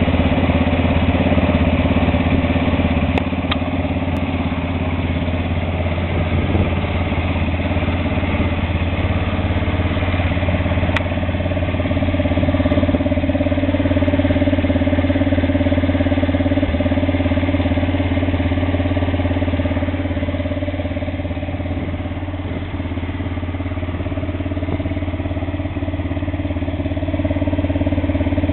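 Arctic Cat ATV engine idling steadily.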